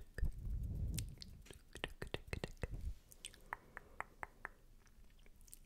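Wet, spitty ASMR mouth sounds right against the microphone: a quick run of sharp clicks and smacks over a low rumble for the first three seconds, thinning out near the end.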